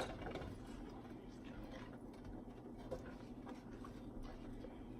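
Faint kitchen sound: butter sauce cooking on low heat, a few light scattered ticks over a steady low hum.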